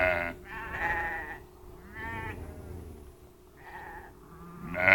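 Dog whining and yelping in pain, about five short high cries roughly a second apart, with porcupine quills stuck in it.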